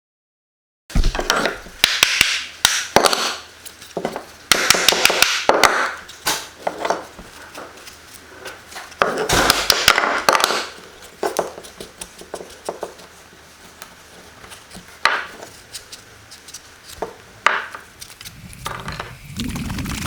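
Hand tools working on the old ash wood of a table: sharp knocks and clicks mixed with short bursts of scraping. It starts about a second in, is busiest in the first half and thins out to scattered knocks later.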